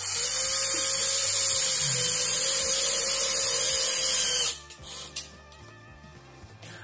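Cordless drill-driver running steadily at one speed for about four and a half seconds, then stopping.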